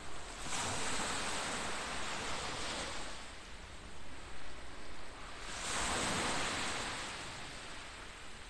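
Sea waves washing onto the shore: two swells of surf, each about two seconds long, rising and falling away.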